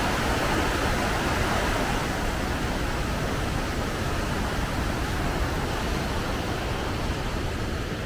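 Rushing water of a waterfall cascade: a steady roar of noise that slowly grows quieter.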